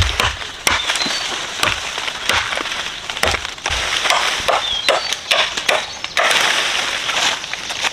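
Irregular cracking and snapping of brush and wood being cut and broken, with a steady rustling hiss from about six seconds in. A few brief high chirps sound over it.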